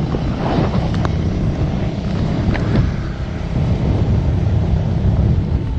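Motorcycle running steadily on the road, a continuous low rumble of engine and riding noise.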